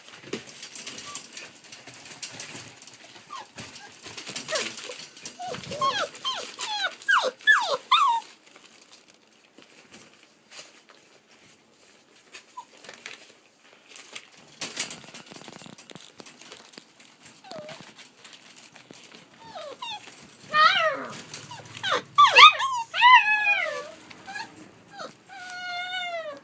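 Rough collie puppies, about five to six weeks old, whining and yelping in short, high cries that rise and fall. The cries come in two spells, a few seconds in and again over the last six seconds, with scattered light clicks and rustling between.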